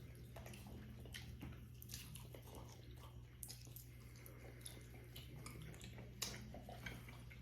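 Faint scattered wet smacks and clicks of people chewing saucy chicken wings, over a low steady hum.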